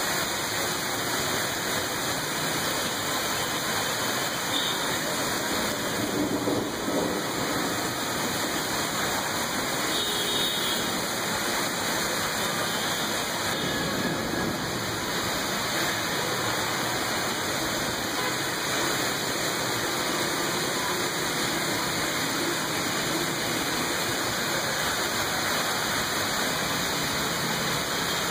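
Heavy monsoon rain falling steadily, an even hiss of rain and running water.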